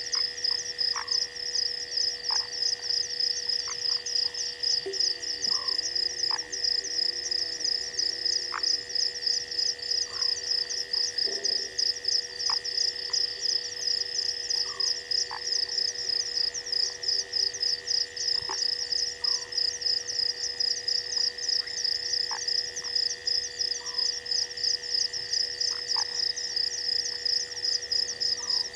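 Night chorus of frogs and insects at a waterhole: a fast, steady high-pitched pulsing throughout, a constant whine beneath it, and short frog calls every second or two.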